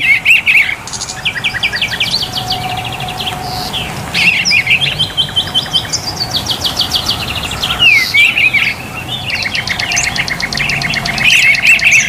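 Several songbirds chirping and singing at once, a dense mix of rapid trills, repeated chirps and whistled, sliding notes.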